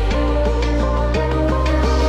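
Electronic background music: sustained bass under a repeating synth melody, the bass note changing about a second in.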